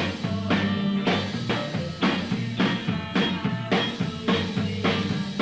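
1960s Merseybeat group playing: a drum kit keeps a steady beat about twice a second under electric guitar and bass.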